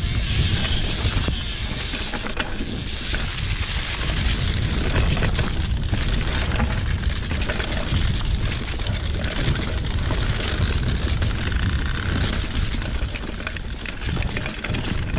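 2020 Specialized Pitch mountain bike rolling fast down a rocky, leaf-covered trail: tyres running over leaves and stones, with frequent knocks and rattles from the bike over bumps. Heavy wind rumble on the camera microphone.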